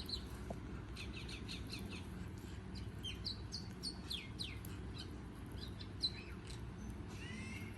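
Small birds chirping: quick runs of short, high chirps, with a few falling calls near the end, over a steady low background noise.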